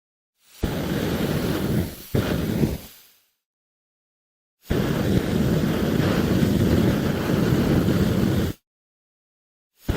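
Flamethrower firing in noisy blasts: one of about a second and a half that fades, a short second blast right after it, then, after a pause, a longer blast of about four seconds that cuts off sharply. Another blast starts at the very end.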